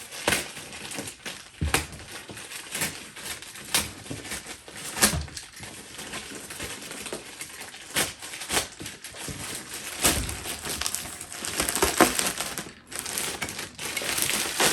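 A cardboard shipping box being cut and torn open through stubborn packing tape: steady crackling and scraping, with irregular sharp knocks and snaps.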